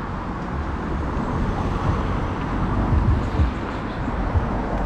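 Steady outdoor rumble and hiss of road traffic passing on a street.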